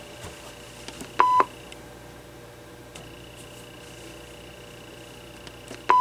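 Answering-machine base of an AT&T 5655 cordless phone giving two short, loud beeps of one steady pitch, each about a quarter second, a little over a second in and again near the end, as its buttons are pressed to select the announce-only greeting. Faint button clicks come between the beeps.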